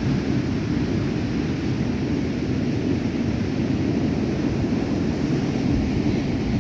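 Stormy sea surf: a steady, heavy wash of breaking waves, with wind rumbling on the microphone.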